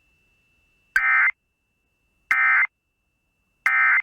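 EAS/SAME end-of-message data bursts: three short bursts of harsh two-tone digital warble, about 1.4 s apart, that mark the end of a NOAA Weather Radio alert.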